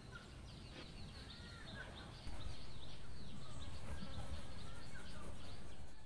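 Small birds chirping and twittering over a steady low background rumble, which gets louder a little over two seconds in.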